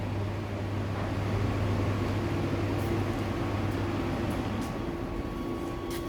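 Steady mechanical hum with a low drone; a second, higher steady tone joins about two seconds in, with a few faint ticks.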